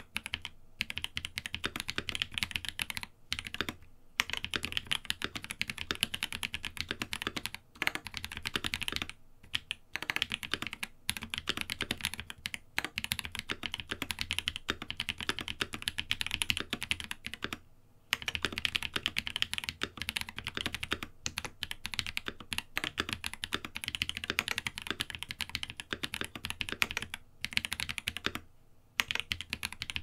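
Fast typing on a Cyberboard custom mechanical keyboard with lubed Holy Panda tactile switches, an aluminium plate and GMK Laser keycaps: a dense stream of keystrokes in runs broken by brief pauses.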